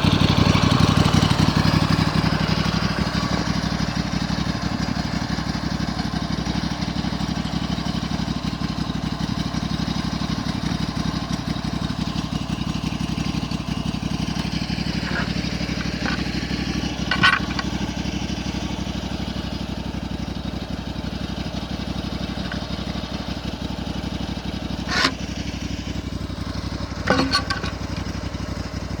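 Engine of a homemade sawmill running steadily, a little louder for the first couple of seconds, with a few sharp clanks in the middle and near the end.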